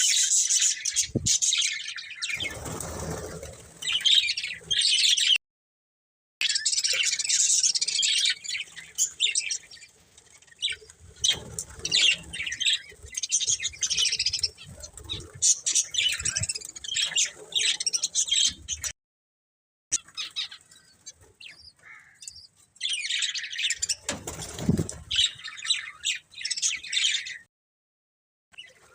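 Several budgerigars chirping and chattering in quick, busy bursts. Twice there is a lower rustling noise under the chirps. The sound cuts off abruptly into silence three times.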